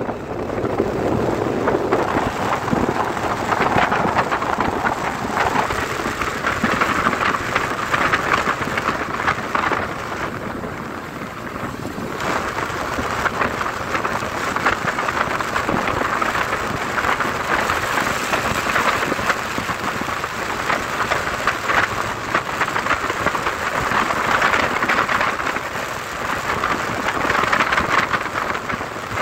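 Steady rushing wind and rain noise on the microphone of a camera riding on a moving motorcycle, full of fine crackle, with no clear engine note standing out.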